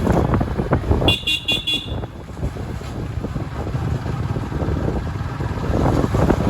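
Road traffic running steadily, with a high-pitched vehicle horn beeped about four times in quick succession about a second in.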